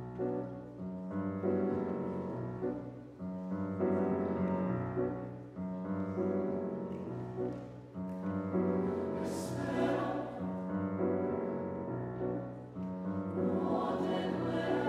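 Grand piano playing a repeating pattern of chords, each one struck and dying away, with a mixed choir singing; a brief hiss sounds about nine seconds in, and the sound grows fuller near the end.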